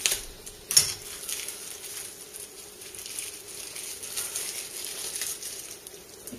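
Wrapping rustling and being handled as small knives are unwrapped, with two sharp clicks in the first second.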